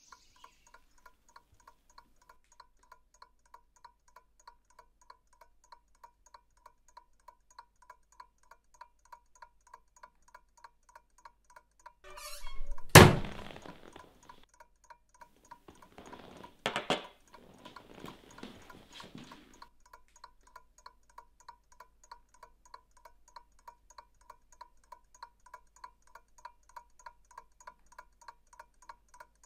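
A clock ticking steadily, about two ticks a second. About 13 seconds in comes a loud thud with a short ring after it, then a sharper knock and some scuffling a few seconds later.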